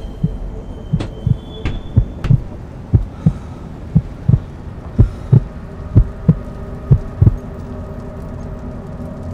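A heartbeat sound effect: low, paired lub-dub beats about once a second that stop a little over seven seconds in. A steady low hum runs under the beats and goes on after them.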